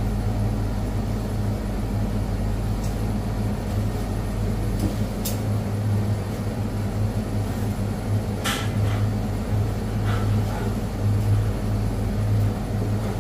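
Steady low mechanical hum of a commercial kitchen, with a couple of sharp clicks or clinks, the clearest about eight and a half seconds in.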